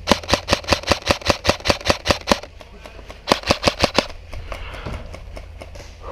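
Airsoft gun firing a rapid string of about a dozen sharp shots at about five a second, then after a short pause a quicker burst of about six more.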